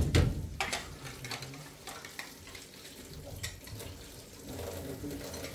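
Kitchen clatter: scattered clinks and knocks of dishes and utensils over a low steady hiss.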